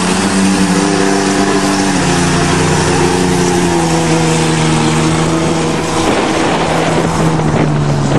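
A vehicle engine running hard and steadily, its pitch dropping a little about two seconds in and then holding, over a constant hiss of wind and motion.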